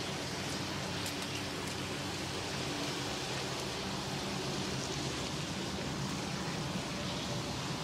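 Food sizzling on a grill: a steady frying hiss with a few faint crackles about a second in.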